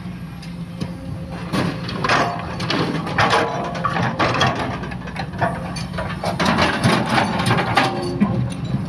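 Sumitomo excavator's diesel engine running steadily under repeated, irregular knocks and clatter of the bucket working soil, which start about a second and a half in.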